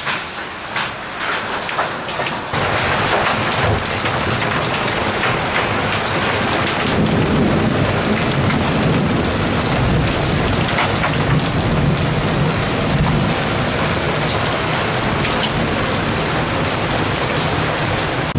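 Hailstorm with heavy rain. For the first two and a half seconds there are scattered separate knocks of hailstones striking. After that a dense, steady, heavy downpour of rain and hail continues without a break.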